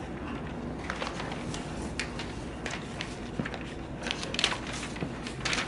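Sheets of paper rustling and crackling as they are handled and shuffled close to a microphone, the crackles getting busier toward the end, over a steady low room hum.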